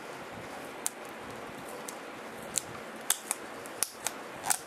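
Fingers picking and scraping at an adhesive security seal on a plastic DVD case: a few short sharp clicks and scratches, more frequent toward the end, over a steady hiss.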